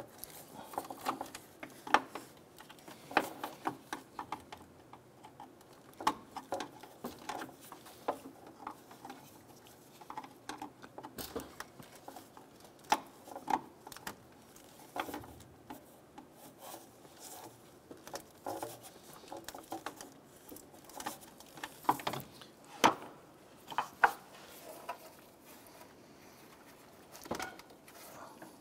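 Irregular plastic clicks, snaps and rubbing as wiring harness clips and electrical connectors are pried and pulled off a car's electric cooling fan shroud, with a few sharper snaps among them.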